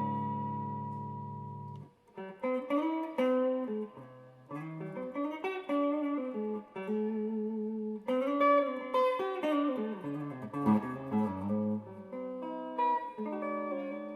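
Tokai Love Rock Les Paul-style electric guitar being played. A chord rings out and is damped about two seconds in. Single-note melodic phrases follow, and near the end it settles on a chord left ringing.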